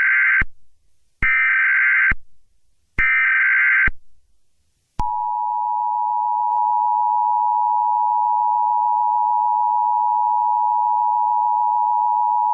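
Emergency Alert System tones. First come three short data bursts of the digital SAME header, each just under a second and the first already under way. About five seconds in, the steady two-tone attention signal starts and holds.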